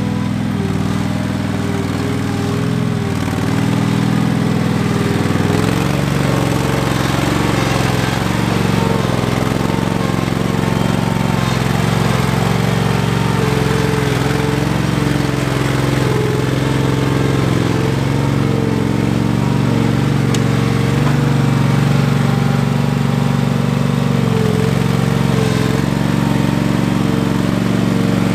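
Ingersoll 7020L garden tractor's engine running steadily as the tractor drives, with a slight shift in pitch and level about five seconds in.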